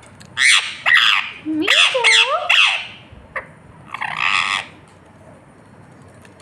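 Indian ringneck parrot squawking in three short bouts of harsh calls.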